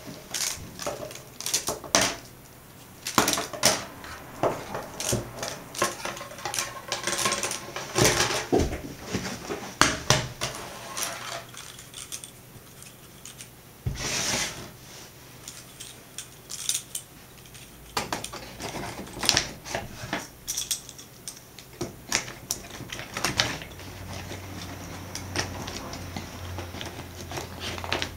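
Thin laser-cut wooden slats of flexible Dukta modules clattering and clicking against each other and the wooden tabletop as they are flexed, handled and fitted together, in irregular bursts of small knocks and rattles.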